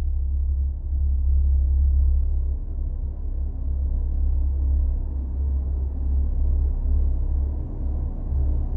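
Dark ambient drone music: a deep bass drone that slowly swells and ebbs, with faint held tones above it.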